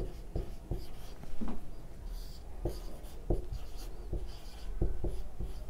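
Felt-tip marker writing on a whiteboard: a run of short scratchy strokes and light taps as the tip moves over the board.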